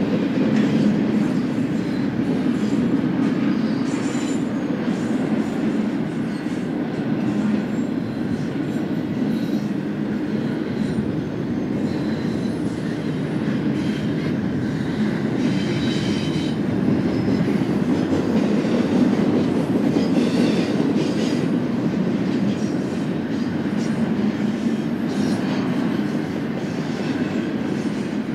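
BNSF intermodal freight train rolling past: a steady low rumble of steel wheels on rail, with brief high wheel squeals now and then.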